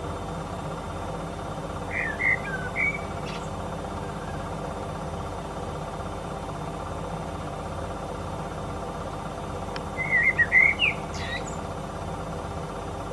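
Male Eurasian blackbird singing: two short, fluting song phrases about eight seconds apart, each ending in a brief, higher, thin twitter. A steady low hum runs underneath.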